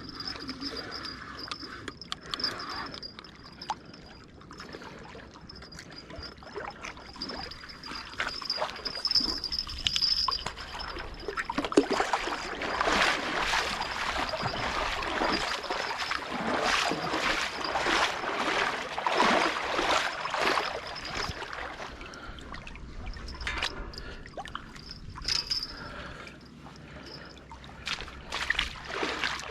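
Water splashing and sloshing, heaviest in a run of quick splashes in the middle, with a thin steady high whine early on.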